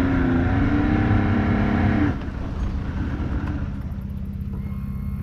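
Bass boat outboard motor running under throttle with a slightly rising pitch, then easing off about two seconds in and carrying on at a lower level.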